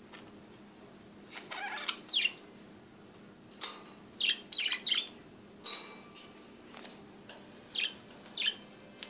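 Pet budgerigars chirping: short, sharp chirps in scattered little clusters over a faint steady hum.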